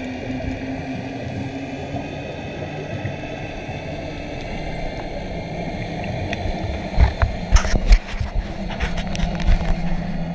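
Underwater sound through a camera housing: a steady hum with a few faint held tones, then from about seven seconds in, loud gurgling rushes and deep thumps of scuba regulator exhaust bubbles. The loudest burst comes about eight seconds in.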